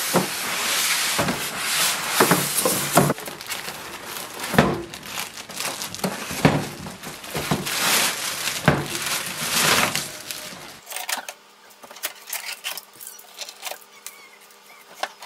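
Thin plastic packaging bag crinkling and rustling as it is pulled off a new inkjet printer, with knocks and clicks of the packaging being handled. About eleven seconds in it dies down to a few light taps.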